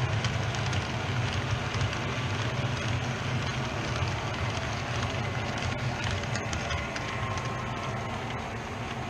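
Model trains running on a layout: a steady motor hum with wheels rolling over the track, and a few faint clicks.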